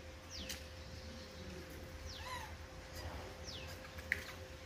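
An animal calling: a high, falling whistle-like call repeated about every second and a half, over a faint steady hum.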